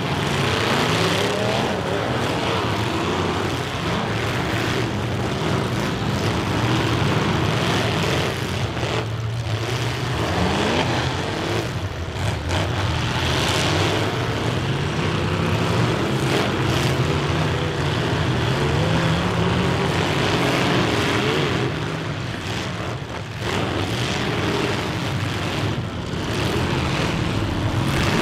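Several full-size demolition derby cars' engines running and revving loudly, their pitch rising and falling as they accelerate and back up in the dirt arena. A few sudden crashes of metal hitting metal stand out as the cars ram each other.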